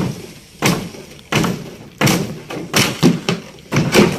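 Hammer blows on the timber shuttering of a freshly cast concrete roof slab as it is knocked loose: about seven sharp knocks, roughly one every 0.7 seconds, each dying away quickly.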